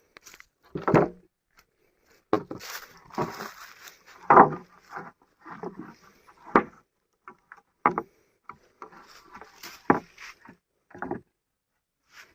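A series of irregular short knocks and thumps with some rustling between them, about a dozen in all, the loudest about four and ten seconds in.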